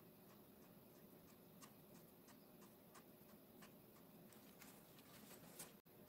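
Faint, quick taps of an ink-loaded brush dabbing leaves onto paper, about three a second, with the sound cutting out for an instant near the end.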